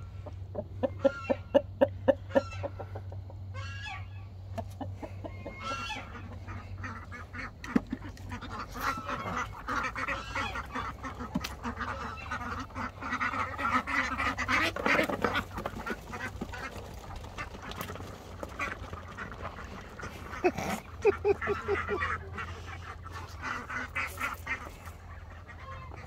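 A flock of domestic ducks and geese calling, quacking and honking: loud runs of rapid quacks about a second in and again about two-thirds of the way through, with a dense chorus of calls in between.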